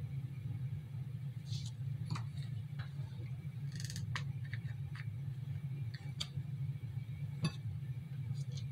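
Scattered light clicks and taps of hands handling a piping bag and a cake stand, irregular and a second or so apart, over a steady low hum.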